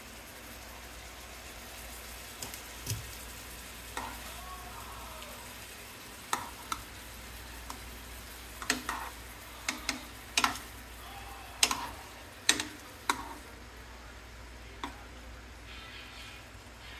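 Chicken breast pieces sizzling in a nonstick frying pan, a steady hiss, with a run of sharp clacks through the middle as tongs turn the pieces against the pan.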